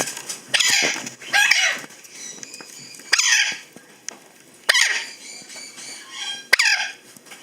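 Patagonian conure squawking: about five loud, harsh calls a second or two apart, each falling in pitch.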